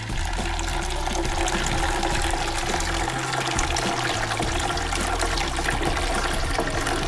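Blended tiger-nut horchata pouring in a steady stream into a metal mesh sieve, splashing and foaming as it strains into a pitcher.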